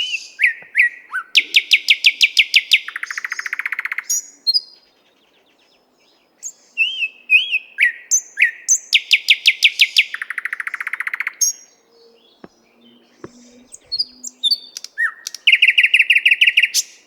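A nightingale singing in three loud phrases. Each phrase opens with a few whistled notes, then runs into a series of sharp repeated notes and a rapid dry rattle. Quieter short notes fill the pauses between phrases.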